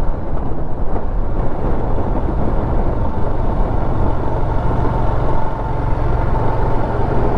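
Royal Enfield Himalayan motorcycle riding along at steady speed: wind rushing over the helmet-mounted action camera's microphone over the low steady drone of the single-cylinder engine.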